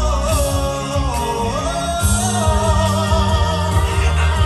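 Music with a singer holding long, wavering notes over a steady bass.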